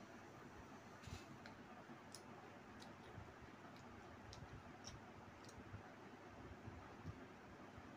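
Near silence over a steady faint hiss, with about a dozen small scattered clicks from eating by hand: tearing chapati, dipping it in curry and chewing.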